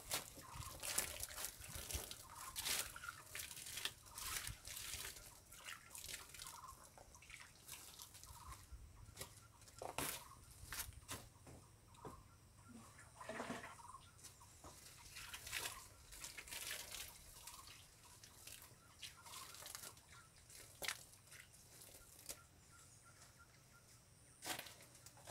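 Rubber boots treading on dry leaf litter and twigs, making irregular crunching and rustling steps that are busiest in the first few seconds and again around 10 and 16 seconds.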